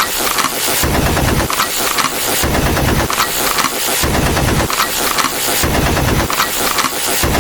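Loud, harsh, dense rapid crackling noise, like a distorted sound effect. Its deep part cuts in and out in blocks of about a second.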